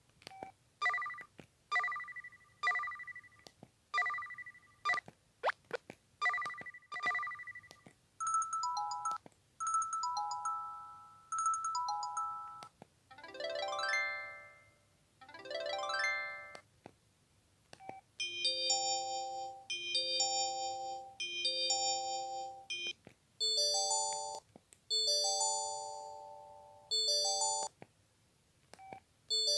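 SK Multi Slider SK-7400 mobile phone playing a run of its built-in alert tones and ringtones: first a two-note chime repeated about every second, then short beeping note patterns, two quick rising arpeggios, and then chord-like electronic tone patterns.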